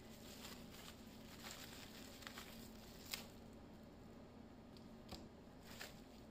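Near silence with faint rustling and a few light clicks, the sharpest about three seconds in.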